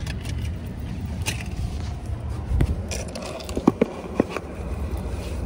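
A phone being handled and set down behind a car's steering wheel: a few rubs and sharp knocks in the middle, over the car's steady low rumble.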